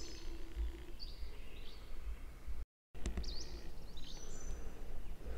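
Small birds chirping, with several short high calls that sweep in pitch, over a steady low outdoor rumble. The sound cuts out completely for a moment about halfway through.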